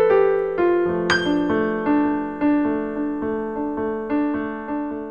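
Solo piano music: single notes struck at an even, gentle pace of about two or three a second, each ringing and fading over held lower notes.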